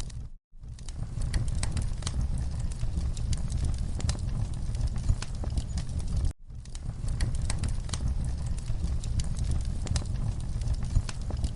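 Wood fire in a fireplace crackling, with frequent irregular sharp pops over a low steady rumble. The sound cuts out for a moment twice, just after the start and about six seconds in.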